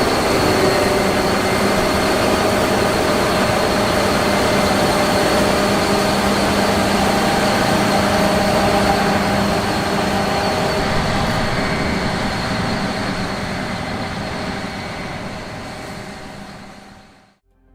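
Combine harvester running: dense heavy machine noise with steady whining tones, fading out over the last few seconds.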